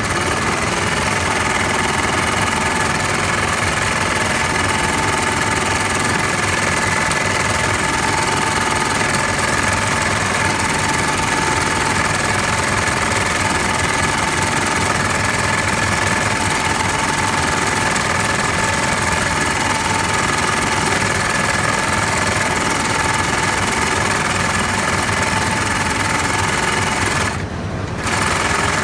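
Hightex 7367 heavy-duty double-feed industrial lockstitch sewing machine running steadily at speed. It stops for about a second near the end, then starts again.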